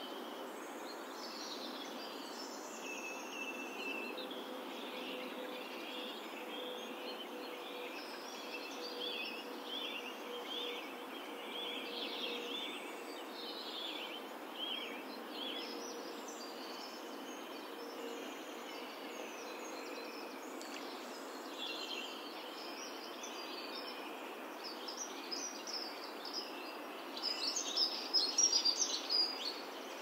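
Outdoor woodland ambience: songbirds chirping and trilling over a steady background hiss, with a faint steady hum through the middle. A louder run of rapid chirps comes about three seconds before the end.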